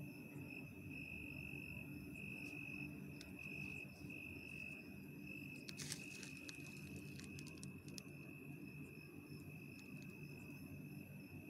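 Crickets chirping in the night, a high trill that pulses at first and then runs on evenly, over a faint low hum. A few brief clicks and rustles come about six to eight seconds in.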